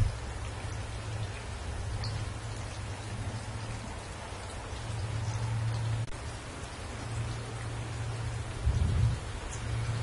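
Steady rain falling on leafy trees, an even hiss. A low rumble runs underneath and swells briefly about nine seconds in.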